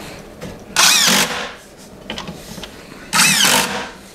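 Cordless drill driving screws into a cabinet drawer front in two short bursts, about a second in and again a little after three seconds.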